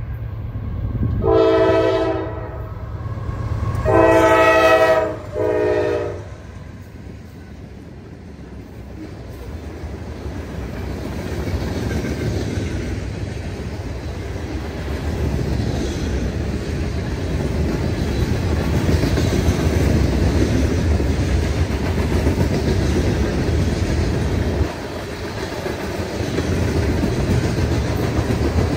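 Norfolk Southern freight train's locomotive air horn sounds three chords: a long one, a second long one and a short one. Then the train rumbles past, growing louder, with the wheels clicking over the rail joints.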